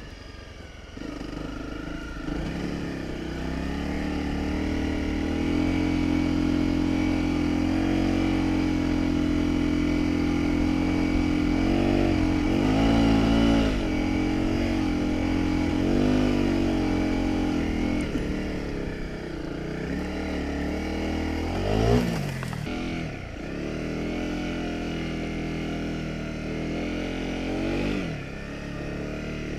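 Honda CRF250 Rally's single-cylinder four-stroke engine running under load while riding through sand, its revs rising and falling with the throttle. A brief sharp rev surge comes about three-quarters of the way through.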